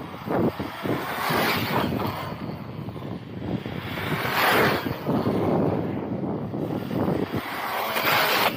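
Arrma Outcast 6S BLX RC truck running hard on asphalt: its brushless motor and drivetrain whir with tyre noise, surging louder about halfway through and again near the end, with wind buffeting the microphone.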